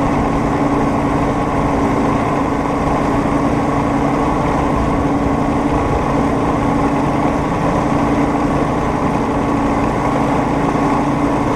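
Homemade rail speeder travelling along the track, its engine running at a steady, unchanging pitch.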